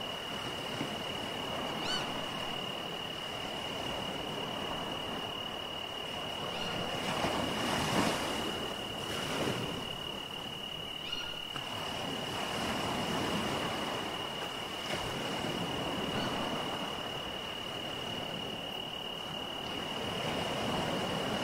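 Sea waves washing in, swelling and ebbing every several seconds, under a steady high insect trill, with a couple of brief chirps about 2 and 11 seconds in.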